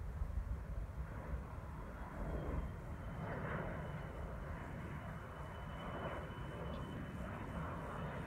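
Distant L-39 Albatros jet trainer's single Ivchenko AI-25TL turbofan on approach: a faint, steady high whine comes in about two seconds in, over a steady low rumble.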